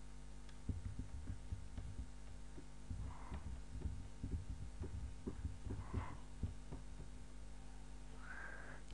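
Steady low electrical hum with an even series of overtones, under irregular soft low thumps that start about a second in.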